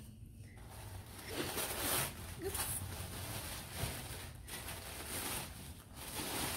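Irregular rustling and crinkling of packaging being handled.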